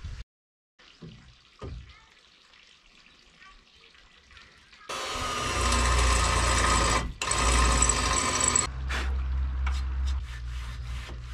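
A cordless drill runs in two loud bursts of about two seconds each, with a brief trigger release about seven seconds in, as it works into the car's front crossmember. It then runs on lower and quieter until shortly before the end.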